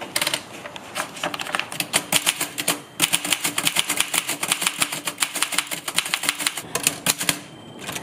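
Old manual portable typewriter being test-typed: a quick run of keystrokes with the typebars striking the platen, several clicks a second, with a brief pause about three seconds in. It is a trial of a machine just checked as working.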